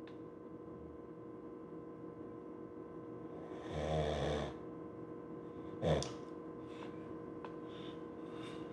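A person snoring: one long snore about four seconds in, followed near six seconds by a short sharp snort-like sound, over a steady electrical hum.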